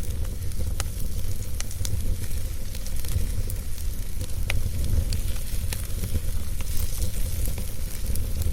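Wood fire in a fireplace crackling: a steady hiss with scattered sharp pops and snaps, over a constant low rumble.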